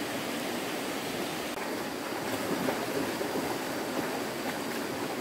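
Stream water rushing in a steady, even flow.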